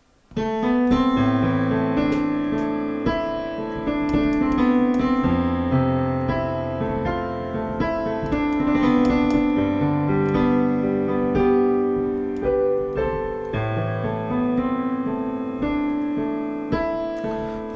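Piano playing the slow instrumental introduction to a song, held chords under a melody line.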